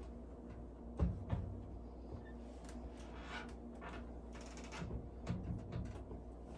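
Soft rubbing and handling of a cloth being wiped over a microwave's exterior, with two light knocks about a second in and a few more near the end, over a steady low hum.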